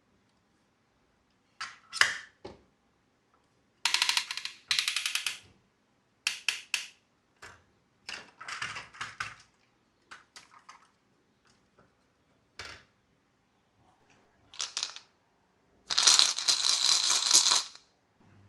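Marbles clattering and rolling down a wooden marble run, in separate bursts of rapid clicks and rattles with silent gaps between. The longest burst comes near the end.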